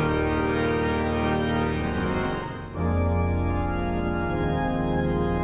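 Church pipe organ playing sustained, full chords. About halfway through, the sound dips briefly, then a new chord with a heavy bass enters.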